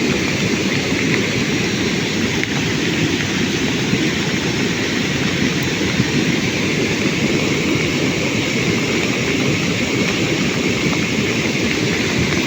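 Heavy rain and floodwater making a steady, loud rushing noise that does not let up.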